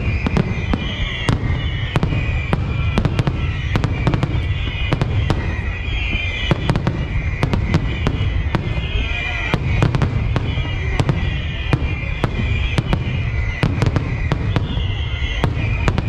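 Fireworks display: sharp bangs of bursting shells, about three a second, over a continuous low rumble.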